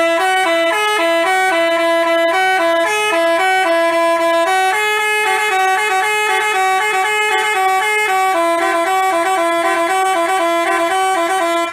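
Telolet Basuri multi-tone bus horn playing a fast tune of short stepped notes, starting and stopping abruptly.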